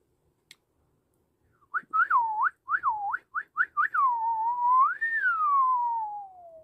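A man whistling a short tune: starting about two seconds in, a run of quick notes, then a long note that rises and slides slowly down in pitch to the end.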